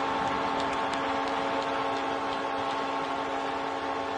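Arena goal horn held as one steady chord, signalling a home-team goal.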